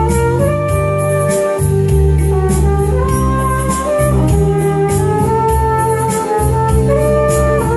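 Flugelhorn playing a slow melody in long held notes over an arranger keyboard's backing of organ chords, bass and a light drum beat.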